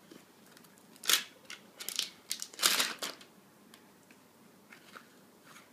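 Packaging crinkling and crackling as the Galaxy S4 box is handled and worked open, in short bursts. The sharpest comes about a second in, the loudest cluster around three seconds in, and a few faint rustles follow near the end.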